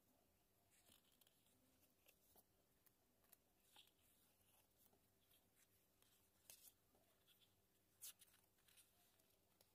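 Near silence with faint paper rustles and light ticks as the pages of a sticker book are turned, the loudest about eight seconds in.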